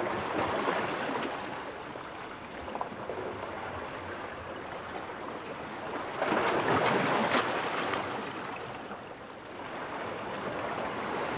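Sea water washing against shore rocks, rising and falling in slow surges, loudest about six to eight seconds in.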